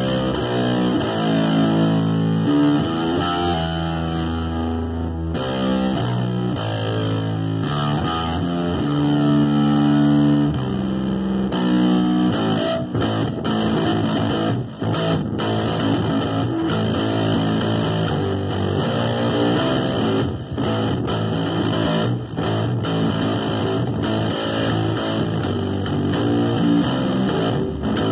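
Electric bass guitar being played through an amplifier with a distorted tone, in a rock style. Long held notes at first, then from about twelve seconds in a busier, choppier part with sharp attacks.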